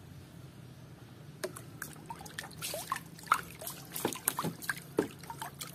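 Muddy water sloshing and dripping as a hand scrubs a mud-coated toy hammer in a basin. Small irregular splashes and drips start about a second and a half in.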